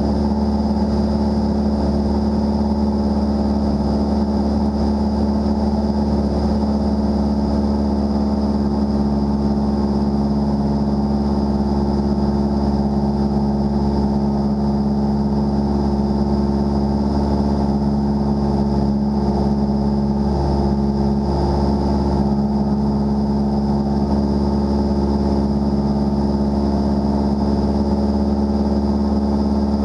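Single-engine light aircraft's engine and propeller droning steadily in level cruise, one even pitch throughout with no change in power.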